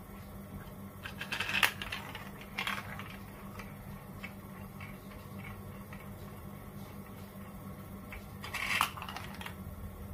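A marble rolling and clattering through a plastic toy marble run's funnels and tubes, with sharp clacks about a second and a half in, again about a second later, and near the end, and small ticks between. A low steady hum runs underneath.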